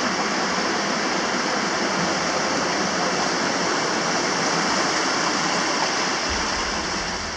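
Mountain creek rushing over rocks, a steady wash of water noise, with a low rumble coming in near the end.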